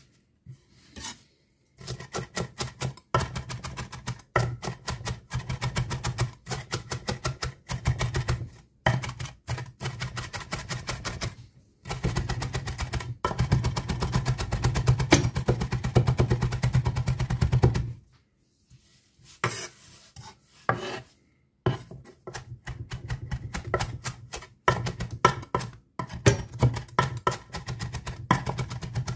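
Chef's knife rapidly chopping fresh greens on a cutting board: long runs of quick knocks, several strokes a second, broken by short pauses near the start and about two-thirds through.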